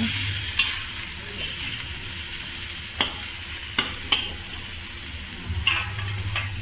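Boneless chicken sizzling in oil and a fried onion, garlic and ginger paste as it is stirred in the pan: a steady sizzle with about six sharp knocks of the stirring utensil against the pan.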